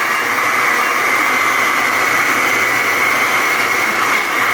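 Electric blender running steadily with a constant motor whine, blending boiled onion, garlic, ginger and lemon juice with no water added.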